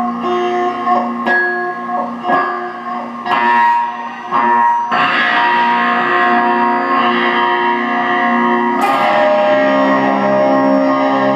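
Electric guitar music through effects: separate plucked notes for the first few seconds, then held ringing chords that change about five seconds in and again near nine seconds.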